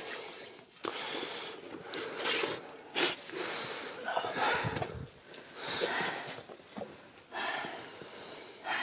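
A goat's hide being pulled and worked loose from the carcass by hand during skinning: irregular short rasping, tearing noises, roughly one a second.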